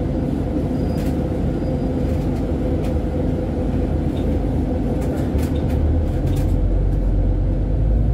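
City tour bus driving slowly, its engine and road noise heard from inside the cabin as a steady low rumble with a constant hum and a few faint rattles. The rumble grows heavier near the end.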